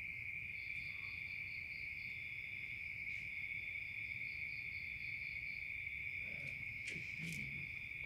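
Night chorus of crickets: one steady high trill, with a second, pulsing trill above it. A few faint clicks come near the end.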